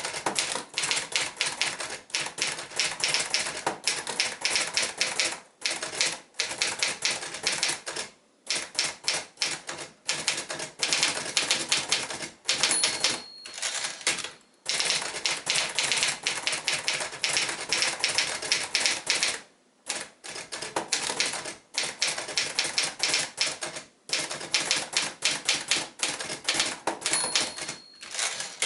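1973 Olivetti Studio 45 portable manual typewriter being typed on: fast runs of keystrokes with short pauses between them. A brief bell rings twice, about 13 and 27 seconds in, consistent with the margin bell warning of the end of a line.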